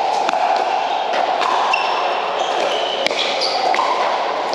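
Pickleball paddles striking the hard plastic ball in a rally: several sharp pops at uneven intervals, the loudest about three seconds in. Brief high squeaks, typical of sneakers on the court, and a steady hum of hall noise and distant chatter run underneath.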